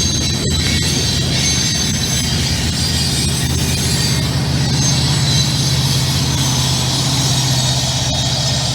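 Freight train rolling past: a steady rumble of wheels on the rails with a thin, high squeal running over it.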